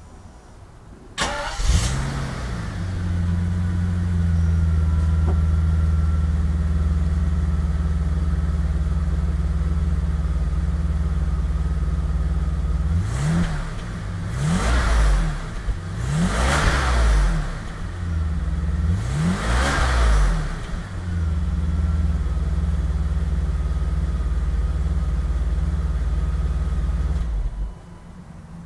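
BMW 850i's V12 engine starting on a short crank, catching with a flare and settling into a steady idle. Past the middle it is revved four times in quick blips that rise and fall back to idle. Near the end the engine is switched off and cuts out suddenly.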